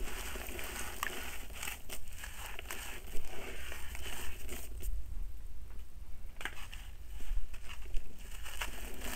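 Gritty soil blocks crumbled by hand, crunching, with the grit falling into a bowl of water in irregular crackles. It is quieter for a couple of seconds past the middle, then the crumbling picks up again.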